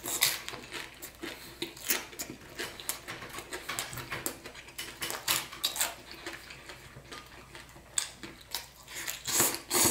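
Eating utensils clicking and scraping against a plate or bowl, in irregular short taps throughout, with a louder cluster near the end.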